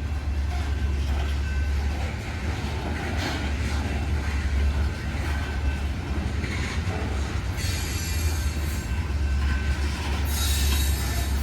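Loaded coal hopper cars of a long freight train rolling slowly past with a steady low rumble. Wheels squeal shrilly in two spells, about eight seconds in and again near the end.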